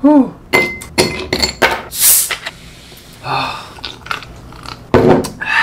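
Quick run of clinks and knocks from bowls and utensils being handled. Short vocal sounds come at the very start and again near the end.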